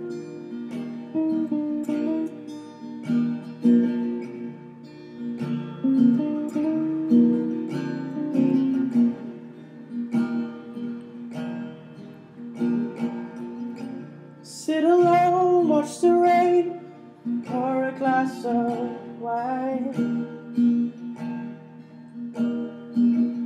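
Song intro on acoustic guitar: chords plucked and strummed in a steady pattern, with a higher, wavering melody line rising above it for a few seconds past the middle.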